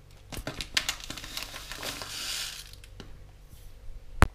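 Crinkling, rustling and small clicks as chia seeds are spooned with a measuring scoop into a plastic mixing bowl, with a brief hiss around the middle. There is one sharp tap of the scoop just after four seconds in, the loudest sound.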